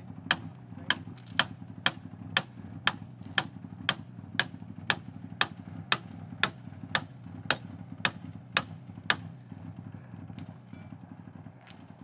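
An engine idling steadily under a regular sharp clicking, about two clicks a second, which stops about nine seconds in.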